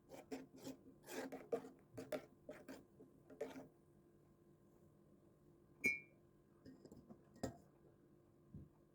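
A quick run of light clicks and knocks, then a pause broken by one sharp clink with a short ringing about six seconds in and a single knock a second and a half later, over a faint steady hum.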